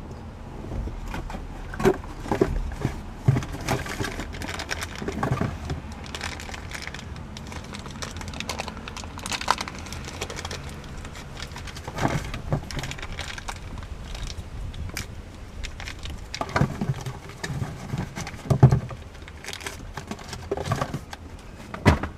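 Handling noise: scattered, irregular knocks and clicks with some crinkling as the aftermarket Jeep grab handle and its bolts are handled.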